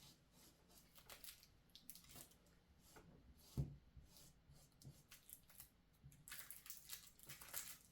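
Faint rustling and light clicks of cloth and a paper pattern being handled by hand, with one soft thump about three and a half seconds in and denser rustling near the end.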